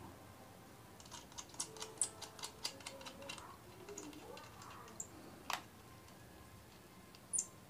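Faint, quick run of small metal clicks and ticks as a bolt and nut are fitted through a perforated steel angle bracket holding an LNB, followed by a single sharper click about halfway through.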